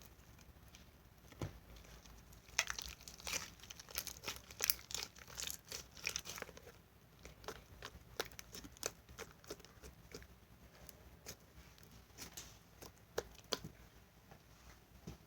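Hands kneading and mixing putty slime with clear foaming cleanser worked into it, giving sticky pops and crackles. The pops come thick and fast a few seconds in, then thin out to scattered clicks.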